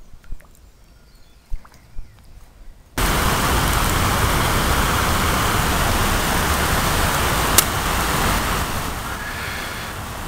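Steady rush of river water spilling over small weirs. It starts abruptly about three seconds in, after a quiet stretch with a few faint clicks, and one sharp click comes about two-thirds of the way through.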